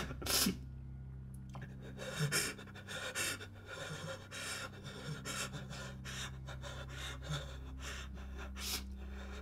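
A young man crying, drawing ragged, gasping breaths at irregular intervals over a low steady hum.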